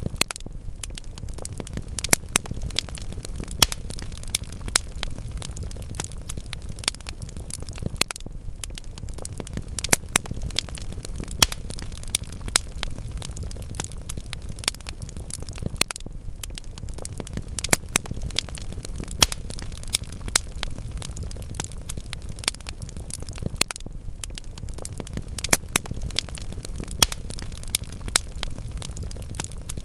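Wood fire burning in a fireplace: logs crackling steadily with frequent sharp, irregular pops over a low rumble of the flames.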